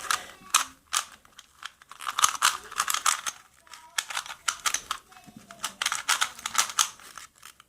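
An original Rubik's brand 3x3 cube being turned quickly during a speedsolve: rapid bursts of plastic clicking and clacking as the layers turn, with short pauses between. The cube is new out of the box and still very tight.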